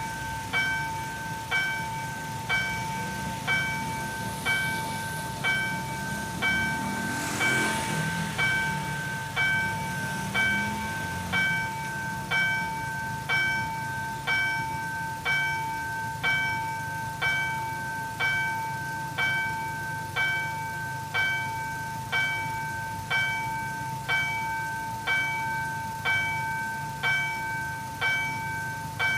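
Level-crossing warning bell ringing with steady, evenly spaced strokes while the barriers are down, signalling an approaching train.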